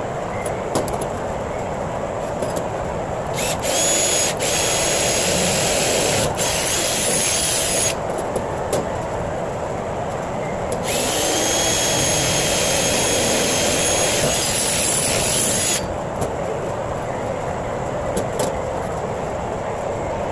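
Ridgid 18V cordless drill boring into a thin stainless steel tube in two runs of about four to five seconds each, the motor giving a steady high whine, the first run with two brief stops. A steady background hum runs underneath.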